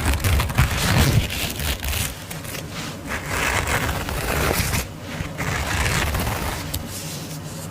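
Close-up rustling and scratching of hands handling a fabric sleep mask with a mesh front, with some heavier handling bumps in the first second or so.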